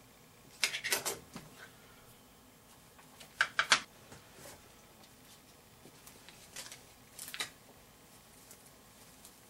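Handling noise from small hard plastic gear on a desk: a quick cluster of clicks and taps about a second in, a louder cluster near four seconds as the sensor case is set down, and a few lighter clicks later as straps are picked up.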